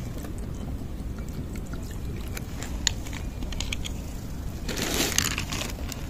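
Cat eating dry kibble from a dish, with scattered small crunching clicks over a low outdoor rumble, and a short rustle about five seconds in.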